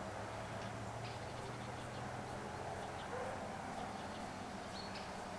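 Quiet outdoor ambience: a faint steady low hum with a few short, high chirps, about a second in and near the end.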